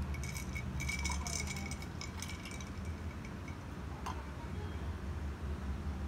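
Ice clinking against a glass mug as a straw moves in an iced drink: a quick flurry of light clinks over the first two and a half seconds, then one more clink about four seconds in.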